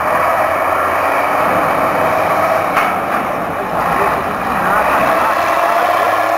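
Diesel engine of a wheel loader running steadily, with background voices.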